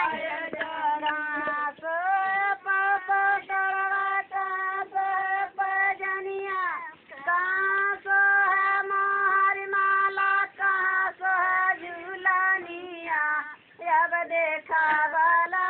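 A woman singing in a high voice without accompaniment, holding long notes with short breaks between phrases.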